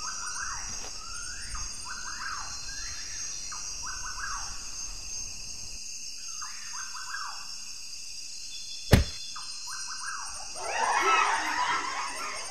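Animated jungle soundscape: a steady high hiss with repeated short rising-and-falling chirping animal calls. About nine seconds in comes one sharp, loud impact, a spear striking a monkey, followed by a harsh, noisy outburst lasting about two seconds.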